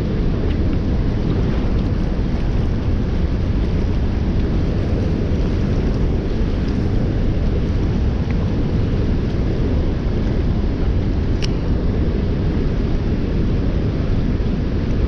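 Steady, low rushing of high river water pouring out from a dam's outflow below a power station.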